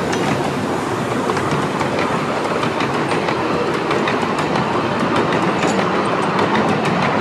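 Miniature railway passenger carriages rolling past close by: a steady rumble of wheels on the track, with many small clicks from the wheels crossing the rail joints.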